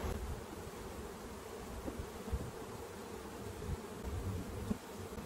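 Honeybees buzzing around an open hive box, a steady hum of many bees.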